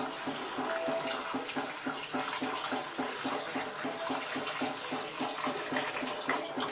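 Water running from a tap while mashed raw potato is rinsed by hand, a steady splashing rush with a fast, even pulsing underneath.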